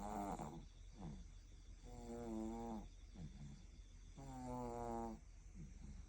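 A sleeping baby snoring with pitched, humming snores, two longer ones about two seconds apart and shorter, softer ones between them.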